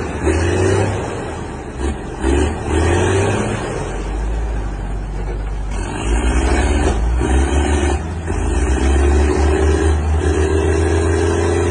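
Tractor diesel engine revving hard under heavy load in repeated rising surges, with the last rev held high near the end. It is straining to drag a trailer heavily loaded with hay bales through soft ground.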